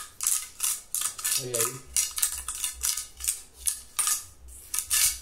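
Steel mason's trowel scraping in quick back-and-forth strokes over a wet cement-and-mortar floor coat, about three strokes a second, smoothing and burnishing it to a polished finish.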